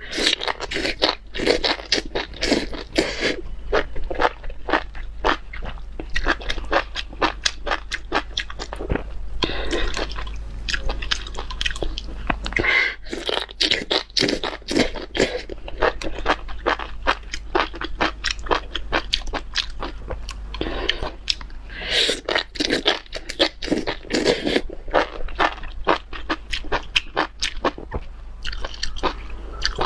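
Close-miked chewing of spicy enoki mushrooms: a steady run of wet, crisp clicks from the mouth, several a second.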